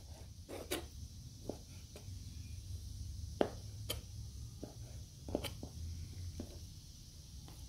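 Kitchen knife dicing raw liver on a plastic cutting board: irregular knocks of the blade against the board, about ten in all, over a low steady hum.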